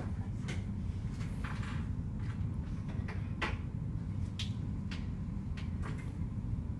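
Indoor ambience: a steady low rumble with scattered light clicks and knocks, the loudest about three and a half seconds in.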